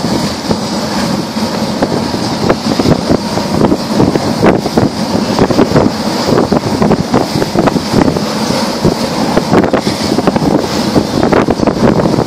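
Water rushing and splashing along the hull of a yacht under way, with heavy wind buffeting on the microphone.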